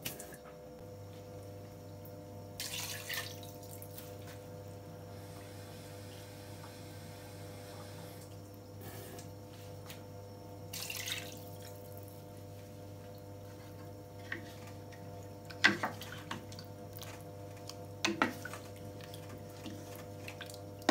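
Pot of duck stew simmering, the broth bubbling softly with a few louder bursts of bubbles, over a steady hum. Toward the end, a few sharp knocks as a wooden spatula strikes the pot while stirring.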